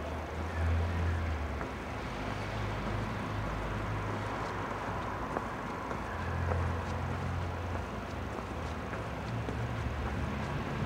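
Town-centre street ambience: a steady low rumble of traffic, rising and falling a little, with a few faint clicks.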